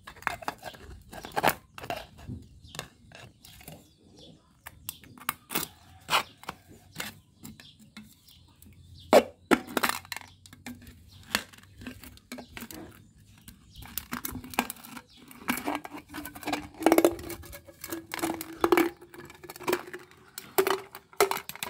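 A ribbed steel rod jabbing, scraping and prying into an emptied aerosol spray paint can. The thin tin crackles and tears open in irregular clicks and scrapes against the concrete.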